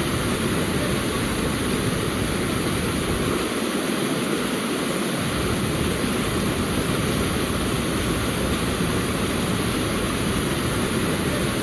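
Waterfall pouring: a steady, loud rush of falling water. The deep rumble drops away briefly about three and a half seconds in.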